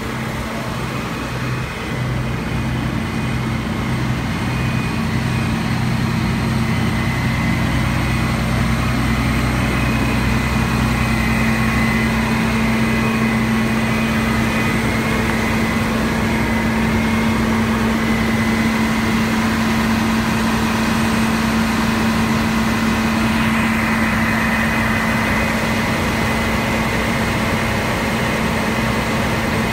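Fire engine's diesel engine running steadily at raised revs, driving its pump to feed the hose lines; it grows louder over the first few seconds, then holds an even drone.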